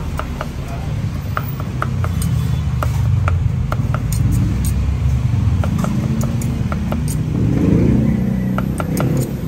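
Steel cleaver chopping cooked meat on a thick round wooden chopping block: sharp knocks a few times a second in an uneven rhythm. Under it runs the steady low rumble of road traffic, which swells about three-quarters through as a vehicle passes.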